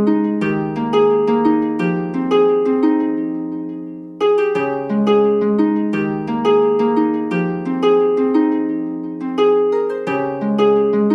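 Instrumental music of gently plucked harp arpeggios. Each note rings and fades, and the phrase dips briefly about four seconds in before starting again.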